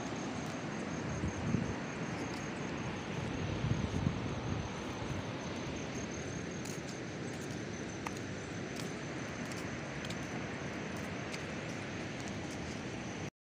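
Wind buffeting the phone's microphone over the steady hiss of surf on a beach, with stronger gusts about a second and a half and four seconds in. A thin, steady high tone runs through it, and the sound stops abruptly near the end.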